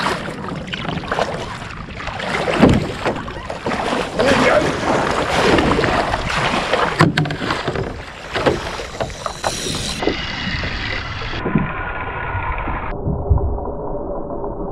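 Kayak paddle strokes splashing through choppy sea water, with wind on the microphone. In the last few seconds the sound turns duller and a steady, multi-pitched tone comes in.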